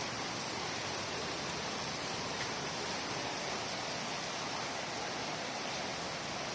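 Heavy thunderstorm rain pouring down, a steady even hiss with no thunder in it.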